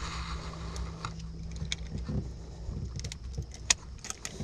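Steady low hum of a boat motor that fades out about three and a half seconds in, with scattered sharp clicks and a few low knocks from a lip gripper and scale being handled on the boat's aluminium deck while a fish is weighed.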